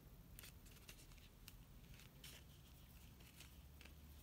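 Near silence: room tone with a low hum and a few faint soft clicks and rustles of fingers handling a faux leather hair bow on a metal clip.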